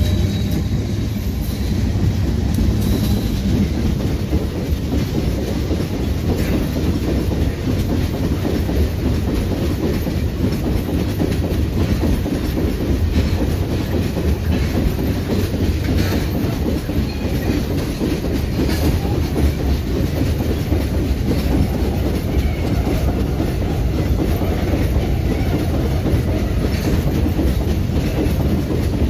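Long freight train of ore gondola wagons rolling past: a steady rumble of steel wheels on rail with scattered clicks from the wheels and rail joints.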